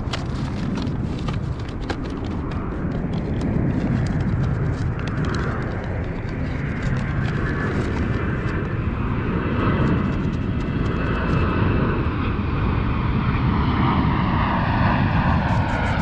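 Jet airliner flying overhead: a steady rumble that slowly grows louder, with a whine that slowly falls in pitch over the second half as it passes.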